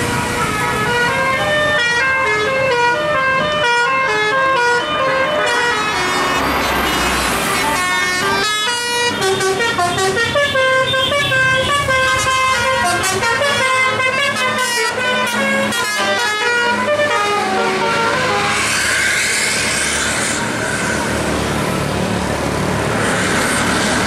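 Bus telolet horn, a Basuri multi-tone horn, playing a melody for about 16 seconds: quick steps of several notes at once, moving up and down in pitch. Near the end the horn gives way to the rushing noise of the bus passing close by.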